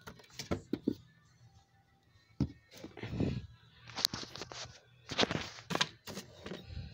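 Handling noise: irregular knocks, clicks and short rustles of cardboard pieces and the phone as a hand reaches into a cardboard model room.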